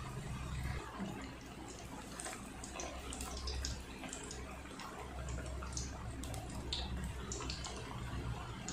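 Beetroot vadas deep-frying in hot oil in a kadai: a steady sizzle and bubbling with scattered sharp crackles. The lively bubbling is the sign that the vadas are still cooking through; they are done when it dies down.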